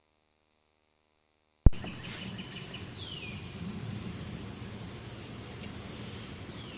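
Dead silence, then a sharp click just under two seconds in, followed by steady outdoor background noise with a few birds chirping, including several short downward-sliding calls.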